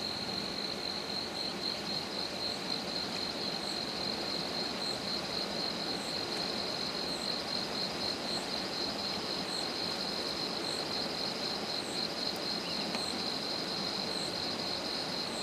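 Insects trilling steadily in a high, fast-pulsing note, with a faint higher chirp repeating about once a second. Beneath it runs the even rush of a flooded river.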